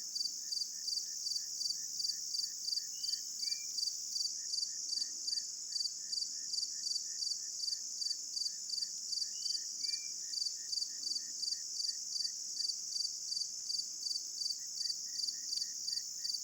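Insects chirping outdoors in a steady, rhythmic chorus, pulsing about three times a second, with two faint short chirps from another caller.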